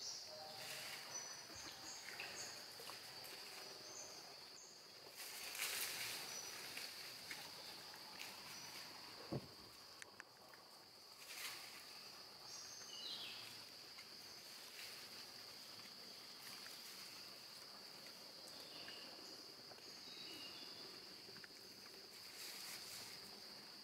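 Faint jungle ambience: a steady high-pitched insect drone, with short high bird chirps scattered over it and a few brief rustles, one of them about six seconds in and a sharp click near the middle.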